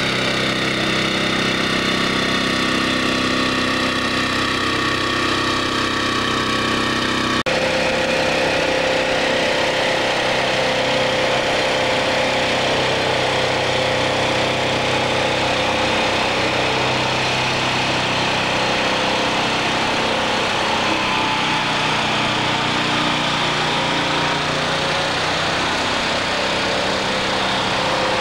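Diesel engines of heavy-haulage trucks running steadily at low speed, with an abrupt change in the engine sound about seven seconds in.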